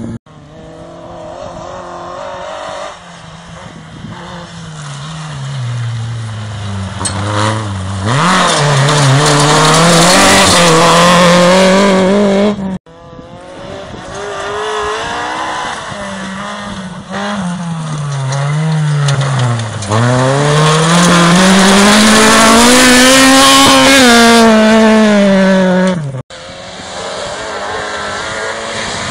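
Rally car engines driven hard on a gravel stage. The engine note climbs and drops in steps as the drivers shift gears and lift off, and it grows loud twice as a car passes close by, then cuts off suddenly.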